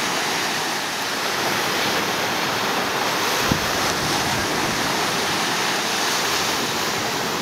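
Steady rushing of surf and wind, with one brief knock about halfway through.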